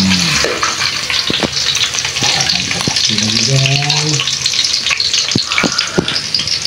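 Garlic cloves sizzling in hot oil in an aluminium wok, with a metal ladle clinking and scraping against the pan now and then as it stirs.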